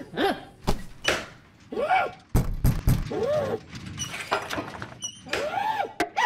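Cartoon sound effects: wordless squawks from a cartoon character, gliding up and down in pitch, alternating with several knocks and thuds, and a sharp click near the end.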